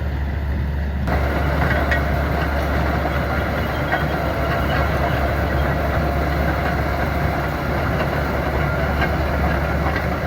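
Caterpillar D8K crawler dozer working in snow: the diesel engine runs with a steady low drone, and about a second in the louder clatter and whine of the machine moving on its steel tracks joins it and carries on.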